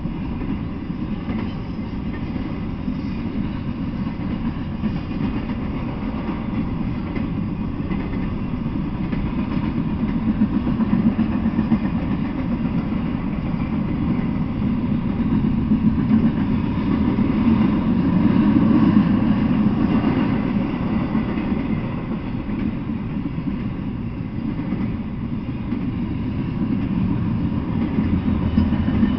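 Intermodal freight train cars rolling past on the rails: a steady low rumble of wheels and cars that swells somewhat in the middle and then eases.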